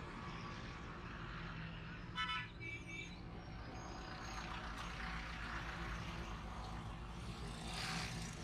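Street traffic of motorcycles and motorcycle rickshaws with their engines running steadily. A short horn toot sounds about two seconds in, and a vehicle passes close near the end.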